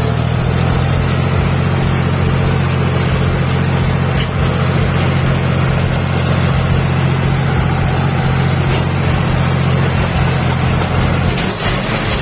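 John Deere tractor's diesel engine running steadily under way, heard from the seat. The engine note drops away about eleven and a half seconds in as the throttle eases.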